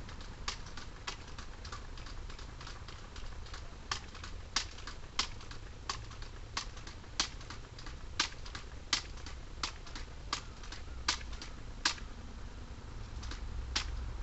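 A long run of short, sharp clicks, about one every two-thirds of a second, faint at first and louder from about four seconds in, with a short gap near the end.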